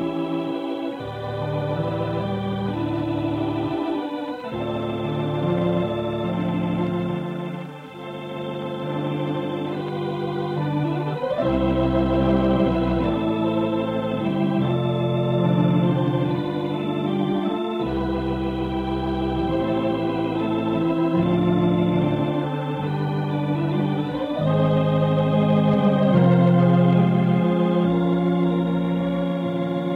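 Organ music: sustained chords over a deep pedal bass, the harmony changing every second or two, heard through the narrow sound of an old radio transcription.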